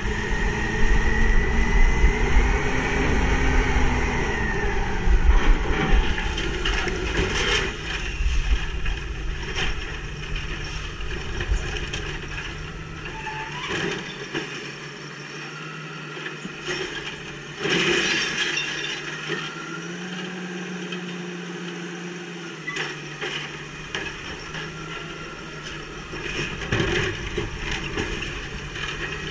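Automated side-loader garbage truck collecting curbside carts: the diesel engine revs high for the first dozen seconds or so, with a hydraulic whine that rises and falls as the grabber arm works, then drops back. Knocks and bangs of the plastic carts being gripped and dumped, the loudest about 18 seconds in.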